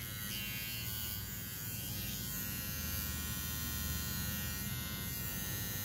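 Kemei KM-1974A cordless T-blade hair trimmer switched on and running, its motor and blade giving a steady buzz.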